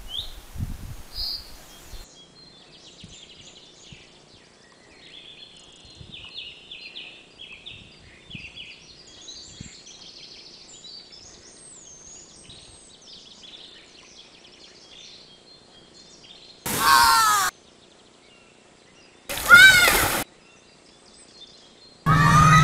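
Small birds singing and twittering in quick, high chirps. Near the end, three short, loud animal calls cut in, each under a second long and about two and a half seconds apart, with a wavering pitch.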